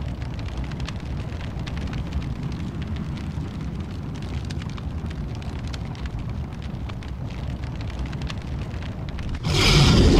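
Dark film sound design: a steady low rumble with faint crackling over it. Near the end, a sudden loud wall of noise cuts in and holds.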